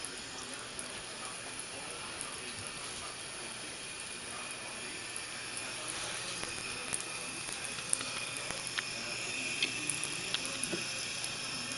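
Thin stream of tap water running steadily into a bathroom sink, a continuous hiss with a few faint clicks in the second half.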